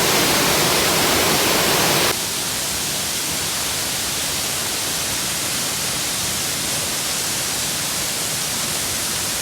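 Waterfall crashing into its pool: a loud, steady rush of falling water filling every pitch. It drops a little in level about two seconds in.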